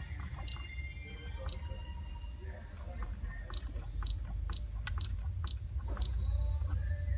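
Digital thermostat beeping as its buttons are pressed: short high beeps, two about a second apart, then six in quick succession about half a second apart.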